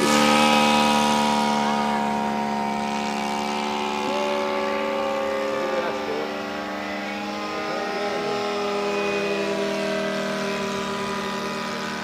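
Seagull 40 radio-control model airplane's motor and propeller running steadily in flight, the pitch wavering slightly as it manoeuvres. The sound is loudest at the start and fades over the first six seconds, then holds steady.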